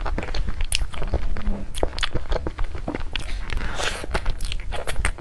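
Close-miked biting and chewing of chocolate dessert, with many quick, irregular crunchy clicks.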